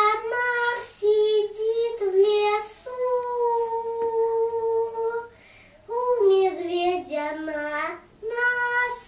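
A young boy singing unaccompanied: short phrases, then a long held note from about three seconds in, then a phrase that steps downward.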